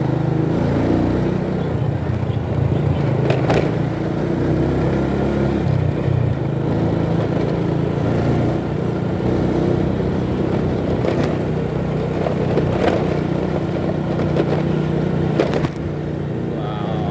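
Motorcycle engine running steadily at cruising speed, heard from the rider's seat over road noise, with a few short knocks along the way.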